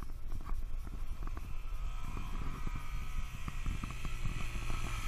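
Dirt bike engine working hard up a steep hill, growing louder as it nears, its pitch rising from about two seconds in.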